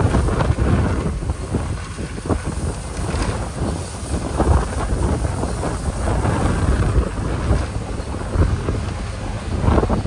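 A 12-wheel dump truck tipping its loaded bed: the engine runs under load while gravel pours out of the tailgate onto the pile with an irregular rattling rush. Wind rumbles on the microphone.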